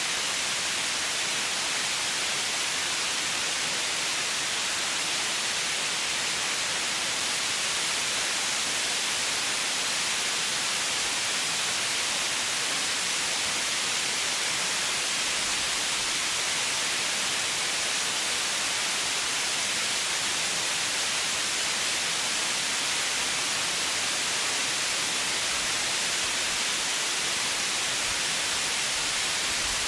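Steady white noise: an even, unchanging hiss weighted toward the high end.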